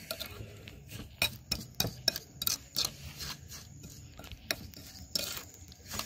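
Metal spoon stirring and scraping sliced lemongrass in a bowl, with irregular clinks against the bowl and a longer scrape about five seconds in.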